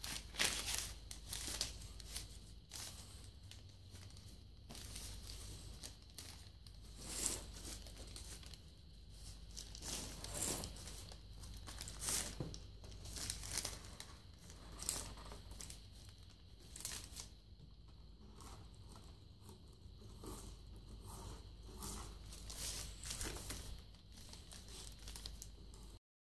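Irregular rustling and crinkling of a brown kraft-paper drop cloth, with scraping of wire and pull string being fed by hand into PVC conduit. The sound cuts off suddenly near the end.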